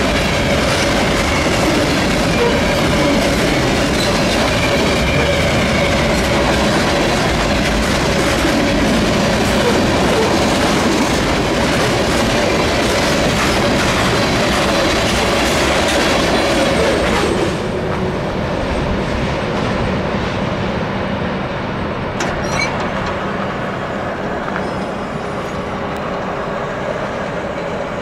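Freight train rolling past: a steady heavy rumble of wheels on rail with clickety-clack and a thin squeal of wheel flanges. About two-thirds of the way through, the sound drops and the hiss fades, leaving a quieter low rumble with a few faint ticks.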